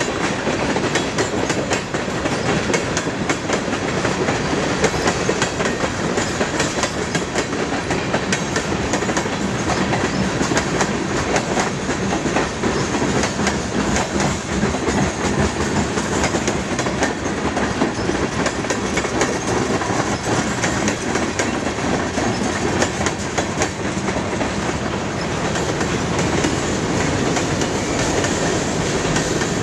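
Freight cars of a long mixed freight train rolling past close by: a steady rumble of steel wheels on the rails, with a dense run of clicks and clatter from the wheels and couplings.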